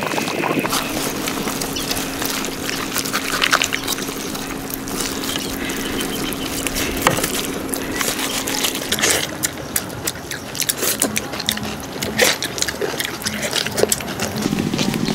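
Water pouring and splashing, with scattered clicks and knocks throughout.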